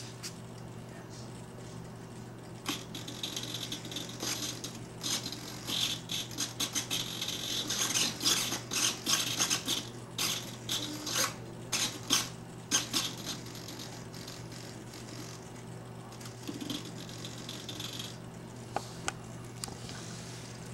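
Small RC servos driving the model helicopter's camera turret pod, buzzing in many short, stop-start bursts as the pod is swung back and forth, mostly in the first two-thirds, over a steady low hum.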